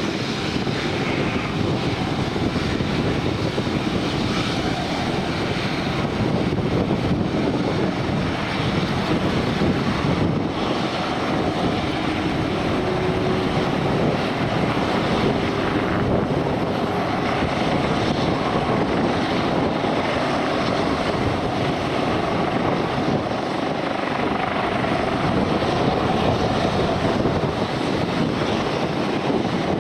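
Aircraft engines running at a steady, unchanging level.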